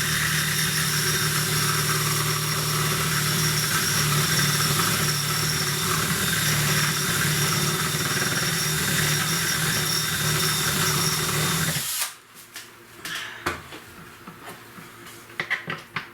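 Electric drill running steadily, boring out plastic to enlarge an opening so a 12-volt socket will fit, then stopping abruptly about twelve seconds in. A few light clicks and handling knocks follow.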